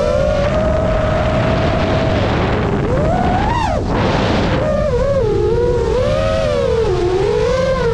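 Motors and propellers of a 5-inch FPV quadcopter whining, the pitch wavering up and down with the throttle, over steady wind rush. About three and a half seconds in the pitch climbs, then drops sharply, and a burst of hissing air takes over for a moment before the motor whine comes back.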